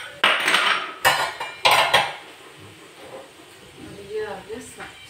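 White crockery bowls and plates clattering as they are picked up and set down against each other, with three loud clatters in the first two seconds.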